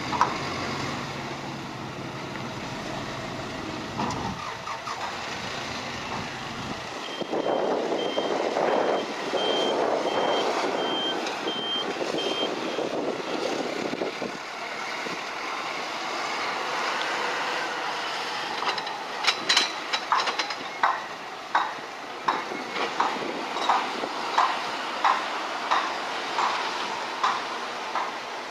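Heavy machinery running at the quayside with a vehicle's reversing alarm beeping for about five seconds. Later comes a steady series of sharp knocks, a little more than one a second.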